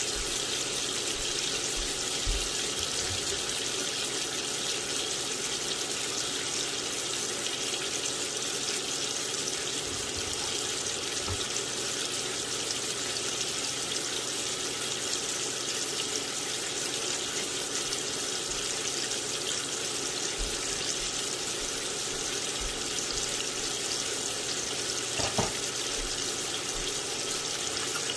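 Steaks frying in melted butter in a pan, a steady high sizzle, with a faint knock about 25 seconds in.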